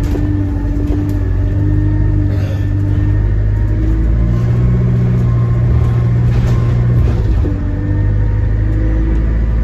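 A bus's engine running, heard inside the passenger cabin on the move: a steady low drone that grows stronger about halfway through, as under acceleration, and eases again near the end.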